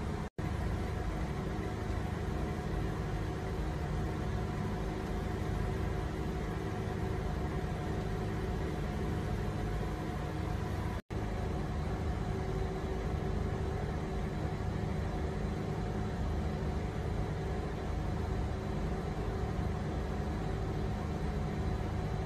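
Steady low mechanical hum with a hiss over it, like a boat engine idling. The sound drops out for an instant twice, once near the start and once about halfway.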